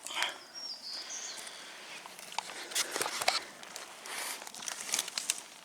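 Irregular rustling and crunching of footsteps and movement through dry forest undergrowth, with scattered sharp snaps and clicks.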